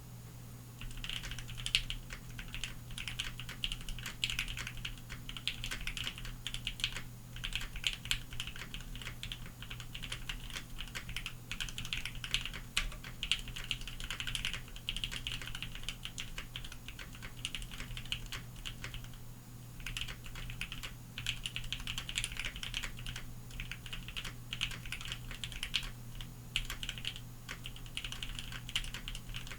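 Fast continuous typing on a Bakeneko60 mechanical keyboard fitted with Lavender switches. It starts about a second in and pauses briefly twice, with a steady low background hum throughout.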